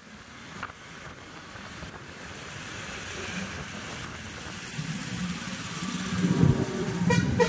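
Road traffic heard from a moving motorcycle: engines of nearby motorcycles and cars with wind on the microphone, growing steadily louder over the last couple of seconds.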